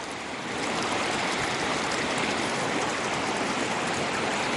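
River water rushing in a steady, even hiss, a little louder from about half a second in.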